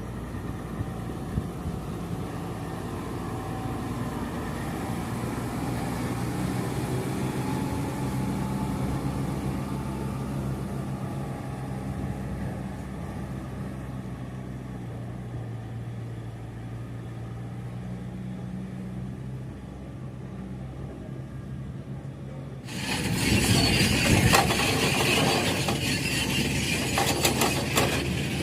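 A heavy engine running steadily at an even speed, of the kind that powers an excavator or its transport truck. Near the end the sound changes suddenly to a louder metallic clattering and rattling.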